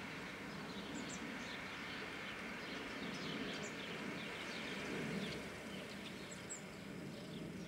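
Birds chirping throughout, many short high calls, over a low rumble from a departing passenger train hauled by a V43 electric locomotive as it rolls away.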